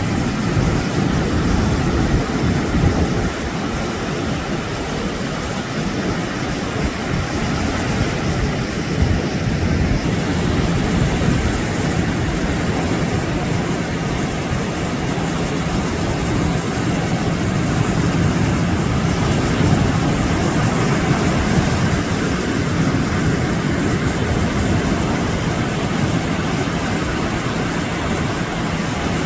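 Wind rumbling and buffeting on the microphone at the seashore, over a steady hiss of surf.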